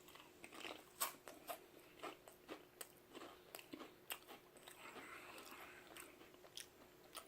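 Someone chewing a mouthful of Pringles potato crisps: a run of small, irregular crunches, about two a second.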